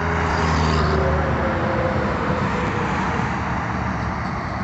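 Highway traffic: a passing truck's engine hum for about the first second and a half, then steady tyre and road noise from vehicles on the highway.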